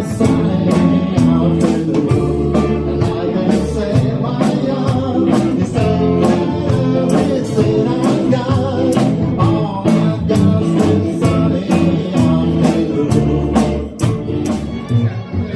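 Band playing a 1960s-style rock and roll song: singing over guitar and bass, with a steady drum beat.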